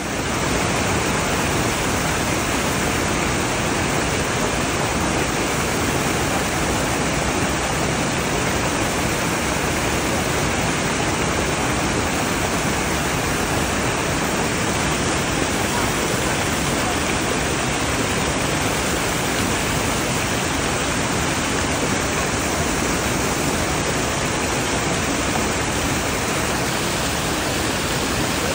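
Stream water pouring over a low ledge of logs and stones in a small cascade, a steady rushing splash.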